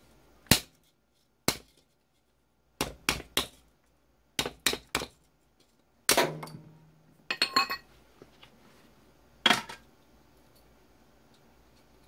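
Hammer blows on a Dyson SV10 cordless vacuum's motor unit, knocking at a part that is pressed in and can only be driven out by striking. About a dozen sharp, irregular knocks, several in quick threes, a couple of them with a brief metallic ring.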